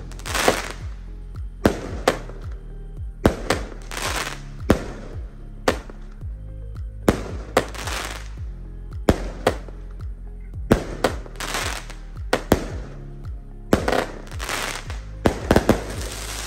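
Consumer aerial firework cake (Lady Universe, 25 shots) firing: an irregular string of sharp bangs about a second apart, several bunched together near the end, each followed by crackle and hiss as the shells break.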